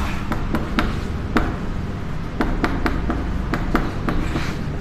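Chalk tapping and scraping on a chalkboard as words are written: irregular sharp taps, several a second, with a short pause in the middle, over a steady low hum.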